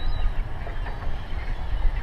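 Steady low rumble of the outdoor background over open water, with a few short, faint calls of gulls above it.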